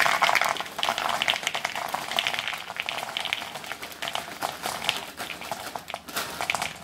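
Dry Post Nilla Banana Pudding cereal pieces poured from a plastic bag into a plastic bowl: a continuous crackling rattle of the pieces landing, easing somewhat near the end.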